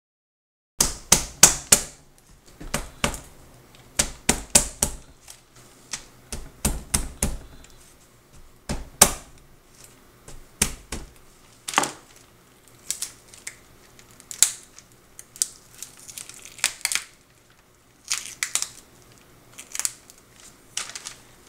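Raw lobster tail shell cracking and crunching as a kitchen knife splits it and hands prise it open, with the paper beneath crinkling. Sharp clicks and cracks come in quick runs with short pauses between, starting about a second in.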